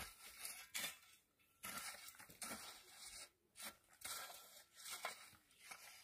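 Long-handled shovel scraping dry cut grass across hard, dusty ground: a faint, dry rustling scrape in repeated strokes, about one a second.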